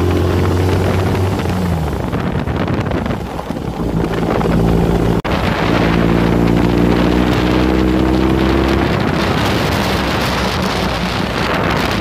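Air-cooled VW Beetle flat-four engine in a Class 11 race car, heard from inside the cabin while driving at low speed. The engine note sags about two seconds in, then climbs steadily as the car accelerates, with road and wind noise rising near the end.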